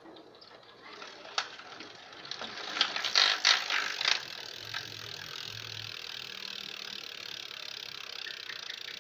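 BMX Shunfeng driver (freewheel hub) clicking as it spins, its pawls ratcheting. A few loud clicks come about three seconds in, then a steady fast buzz of clicks.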